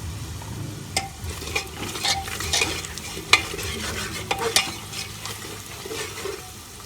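Spices and onions frying in oil in a pressure cooker being stirred, with a low sizzle and a handful of sharp scrapes and knocks of the stirring utensil against the pot.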